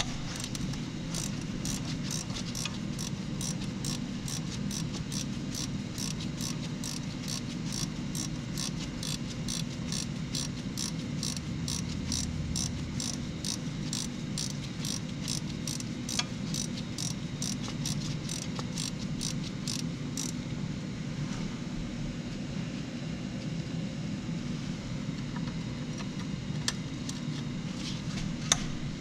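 Ratchet wrench clicking in a steady rhythm, about three clicks a second, as a bolt is worked, stopping about twenty seconds in, with a few single clicks near the end. A low steady hum lies underneath.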